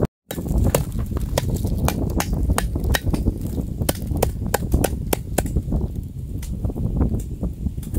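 Sharp, irregular clicks and knocks, a few a second, over a steady low rumble.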